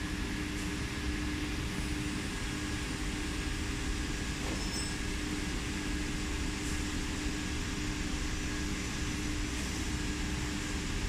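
Steady hum of a tape spooling machine's drive, with a steady mid-pitched tone, as its traverse slowly moves the tape guide to the direction-change position.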